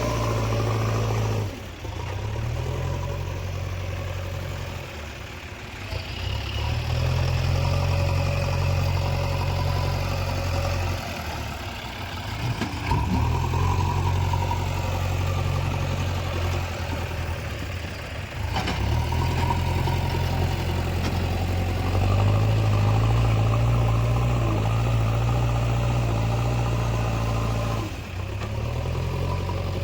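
Diesel engine of a backhoe loader working under changing load. Its low note drops back and picks up again every few seconds, about six times, with some clatter.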